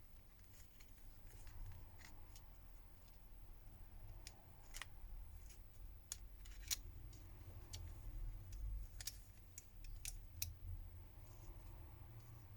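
Scattered small clicks and taps of a smartphone's internal parts being handled and fitted during reassembly, with a faint low rumble underneath.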